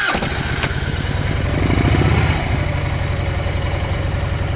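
Motorcycle engine just after starting, idling with an even low beat. It runs a little higher and louder about two seconds in, then settles back to a steady idle.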